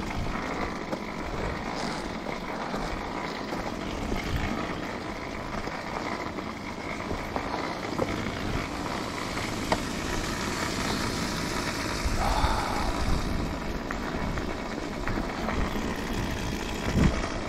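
2008 Kawasaki KX250F single-cylinder four-stroke dirt bike engine running steadily while the bike is ridden, mixed with wind buffeting the microphone.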